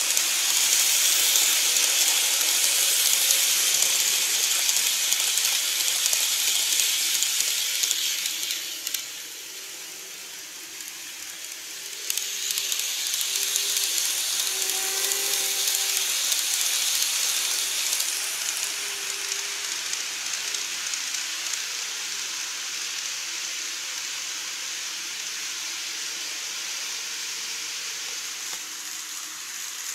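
N-gauge Keikyu model trains running past on the layout's track, giving a steady high-pitched rushing hiss of wheels and motor. It eases about nine seconds in, swells again as a second train passes with a faint motor hum, then fades away.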